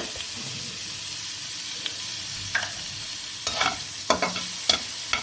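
Shredded chicken and chopped garlic sizzling in a little sunflower oil in a pan, with a steady hiss. From about halfway in, a utensil stirring the chicken scrapes and clicks against the pan several times.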